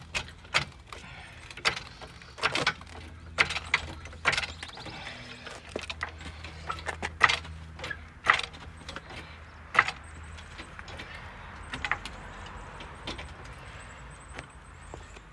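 Irregular sharp clicks and knocks of hand tools and parts being handled during work on a car, roughly one every second or so, over a steady low hum.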